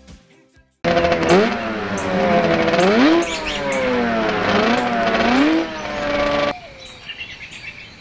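Motorcycle engine revving, its pitch climbing and dropping several times as if running up through gears, starting about a second in and cutting off suddenly. Light bird chirping follows near the end.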